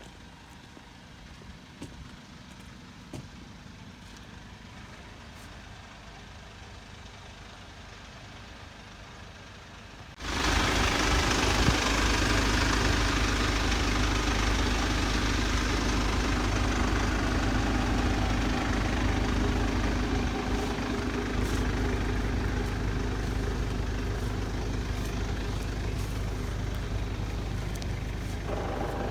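An engine running steadily, which comes in suddenly about ten seconds in after a stretch of quiet.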